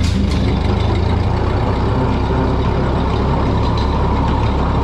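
Ford 8N tractor's four-cylinder gasoline engine running steadily under load, with a click at the start, as the PTO spins the brush beater's blade and the hydraulic three-point lift raises it.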